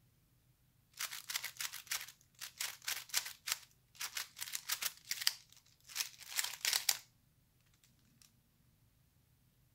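Stickerless 3x3 puzzle cube being turned quickly by hand: rapid runs of plastic clicks for about six seconds, in bursts with short pauses, then a couple of faint clicks as it comes out solved.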